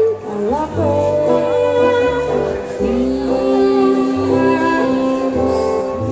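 Fiddle, acoustic guitar and upright double bass playing a slow passage, with long held notes and short slides over low plucked bass notes.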